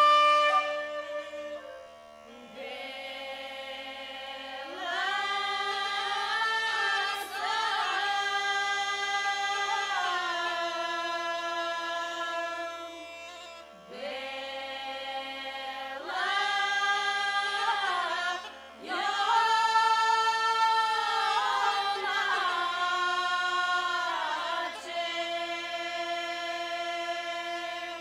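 Traditional sung music: a voice holding long, sustained notes in phrases that each open with an upward slide, over a steady drone.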